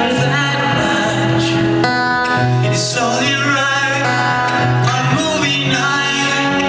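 Live acoustic band music: a man singing over acoustic guitar and keyboard.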